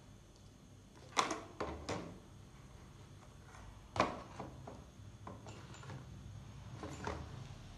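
Small hard plastic knocks and clicks as a clear plastic vial is handled and set down in a plastic tub: a few sharp taps, the loudest about four seconds in.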